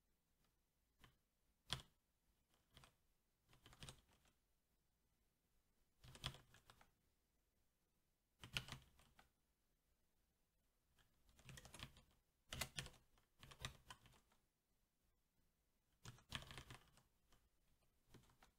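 SteelSeries 6Gv2 mechanical keyboard with Cherry MX Black switches being typed on: short bursts of keystrokes separated by pauses of a second or two.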